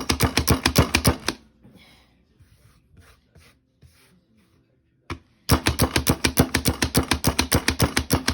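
Pampered Chef hand chopper mincing fresh herbs and garlic: fast, even chopping clicks at about nine a second, stopping after a second and a half, then starting again after a pause of about four seconds.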